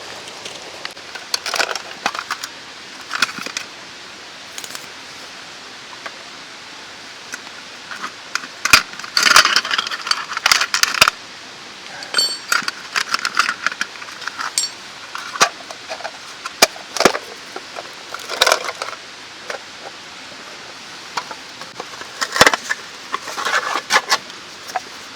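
Scattered small clinks, knocks and brief clattering runs from camp gear being handled, the busiest stretch about nine seconds in, over the steady rush of a mountain stream.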